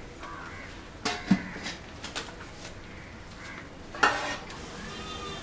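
A metal ladle clinking against a metal frying pan several times, with a louder knock about four seconds in.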